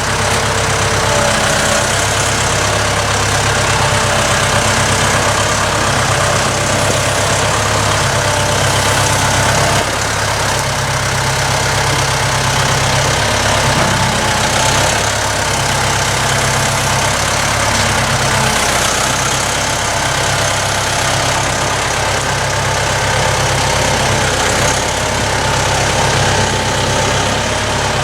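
The engine of a machine carrying a log on its lifting forks, running steadily at low speed as it moves the log toward the sawmill.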